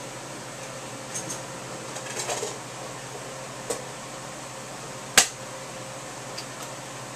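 Scattered clicks and a brief rattle from handling a Sega Dreamcast console and its controller during setup, with one sharp, loud click about five seconds in, over a steady electrical hum.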